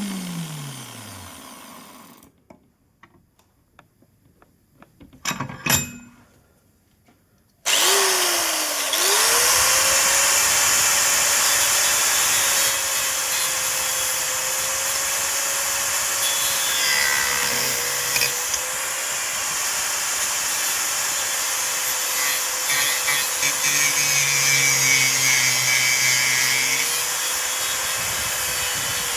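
Electric angle grinder winding down after being switched off, then a short pause with a couple of sharp knocks. It is switched on again about eight seconds in, spins up to speed and runs with a steady high whine while its disc cuts acrylic sheet, the pitch sagging slightly under load.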